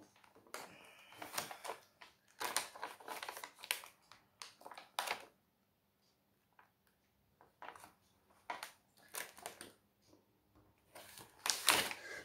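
Plastic protective film crinkling and rustling as it is laid back over the sticky diamond painting canvas and smoothed down by hand. The rustles come in short, irregular spells, busiest in the first few seconds, with a pause in the middle.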